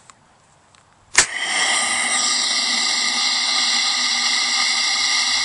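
Compressed air venting from a PVC water-rocket air fill station as its secondary release ball valve is opened: a sharp pop about a second in, then a loud steady hiss with a whistling tone as the stored pressure escapes.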